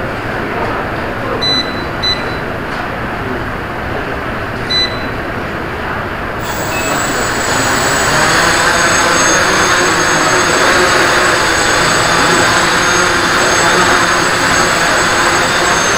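Three short high beeps, then about six seconds in the electric motors and propellers of a radio-controlled tricopter spin up with a sudden jump in level. They run on with a steady high buzz like a bee as it lifts off the floor.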